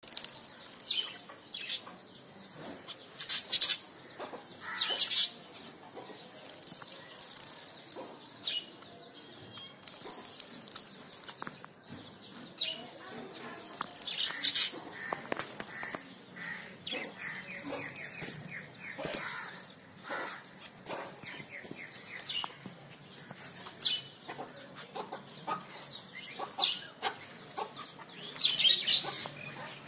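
Zebra finch bathing in a shallow water dish, flicking its wings through the water in short splashy bursts that come several times, loudest a few seconds in, about halfway and near the end. Small cage birds chirp between the splashes.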